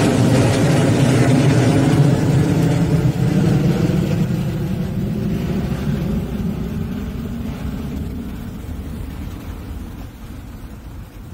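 Jet engine noise of a departing Boeing 737 climbing out overhead at takeoff power. It is loud at first and fades steadily as the airliner flies away.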